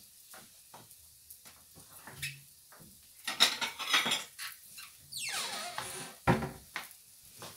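Plates and cutlery clattering as a plate is handled at the kitchen counter: scattered clinks, a burst of clatter about three seconds in, a scraping slide that falls in pitch, then a sharp knock near the end.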